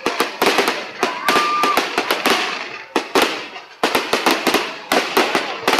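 Fireworks going off: rapid clusters of sharp cracks and bangs, each cluster fading away before the next, with a short lull a little under four seconds in.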